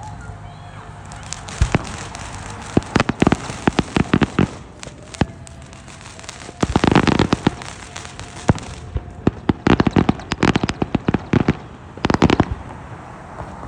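Fireworks going off: clusters of sharp bangs and crackling pops in quick strings, with the densest crackling burst about seven seconds in.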